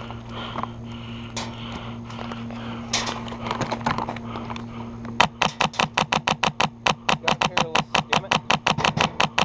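Airsoft gunfire: a few scattered sharp shots, then from about five seconds in a steady string of rapid shots, about four or five a second.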